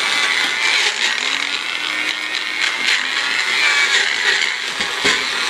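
Magic Bullet blender motor running steadily with a harsh, rattling grind as it churns a thick avocado mix for guacamole: a bad noise.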